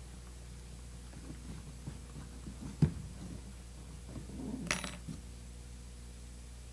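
Small handling noises while hand-stitching twine through burlap: one sharp click about three seconds in, then a short rasping rustle of twine being drawn through the burlap a little before five seconds, over a steady low hum.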